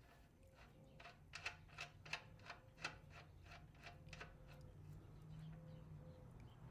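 A run of light, even clicks, about five a second, starting about a second in and stopping after about three and a half seconds: a ratchet wrench working the rear axle nut of a vintage British motorcycle.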